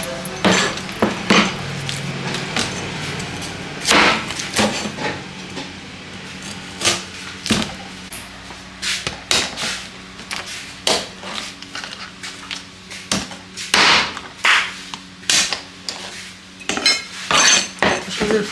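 Irregular knocks and clinks of kitchen work, striking and handling utensils and dishes, over a faint steady low hum.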